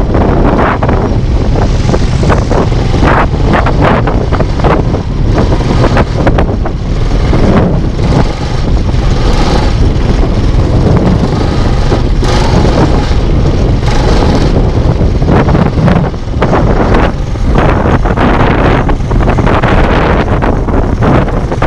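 Heavy wind buffeting the microphone during a motorized ride, with an engine rumbling underneath.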